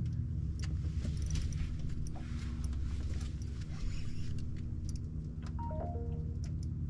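An engine running steadily at low revs, a low droning hum, with scattered light clicks over it.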